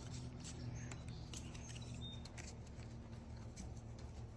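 Faint light ticks and rustles of trading cards being handled, over a steady low hum.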